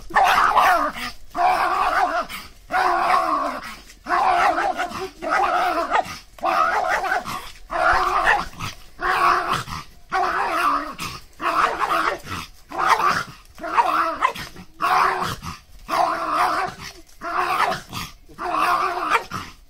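Small black-and-tan mixed-breed dog growling and snarling in repeated loud bursts, about one a second, as it spins around snapping at its own tail.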